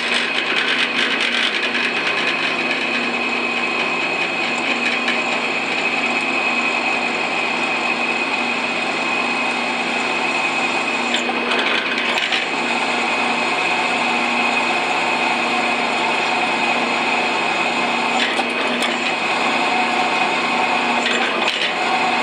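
Electric drill running steadily under load, boring a quarter-inch pilot hole for an M10×1.5 tap, with a high whine over a lower hum and brief changes about halfway and again later.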